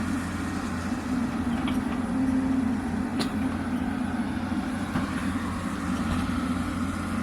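Hyundai 220 excavator's diesel engine running steadily under work, a continuous low hum with a few faint clicks.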